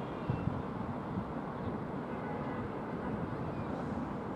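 Freight train hauled by an electric locomotive rolling across a railway bridge: a steady, even rumble, with wind buffeting the microphone in uneven low gusts.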